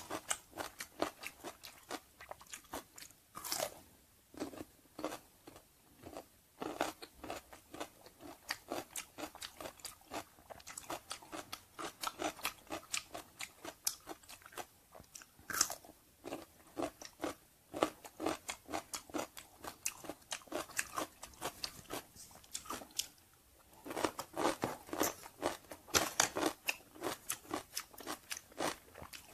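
Close-up crunching and chewing of pickled cucumber: crisp bites followed by runs of quick crunchy chews, several a second, with short pauses.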